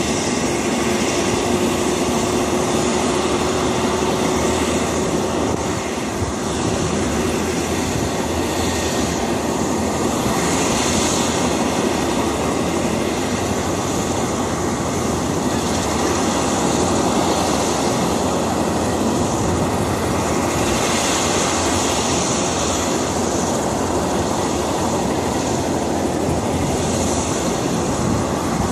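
Helicopter running on the ground before takeoff, a steady loud engine and rotor noise, with a faint steady tone in the first few seconds.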